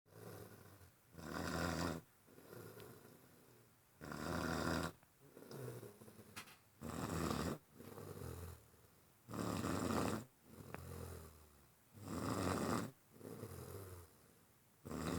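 Heavy snoring in a steady rhythm: a loud rasping snore on each breath in, about every two and a half seconds, with a quieter breath out between.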